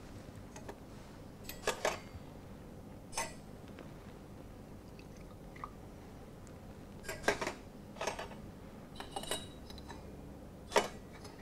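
Cruets and chalice clinking and knocking against each other and the altar table while wine and water are poured into the chalice, about six short separate clinks over quiet room tone.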